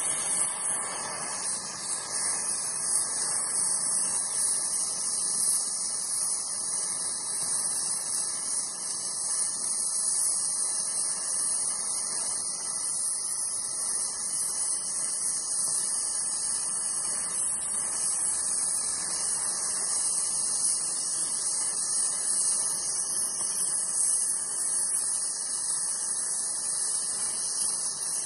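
Oxy-fuel gas welding torch flame hissing steadily while it heats brass at the joint, with filler rod fed into the puddle.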